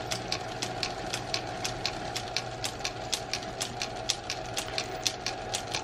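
Small metal lathe running while a twist drill in the tailstock chuck bores through the centre of a spinning bolt. It gives a steady motor hum with a sharp, regular tick about five times a second.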